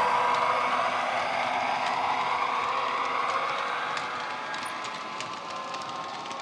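ESU LokSound decoder in an HO-scale SD70ACe model playing a recorded EMD diesel locomotive engine sound through its small onboard speaker, fading as the locomotive pulls away. Light clicking from the model wagons' wheels on the track comes through as the train passes.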